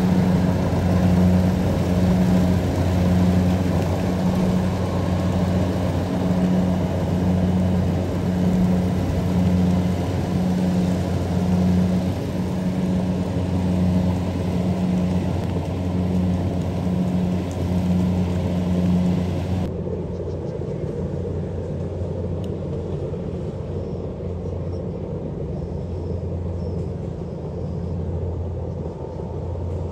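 Diesel engine and threshing gear of a tracked rice combine harvester running steadily as it cuts a paddy, with a regular low pulse. About two-thirds through, the sound changes abruptly to a duller, smoother hum of the machine at work.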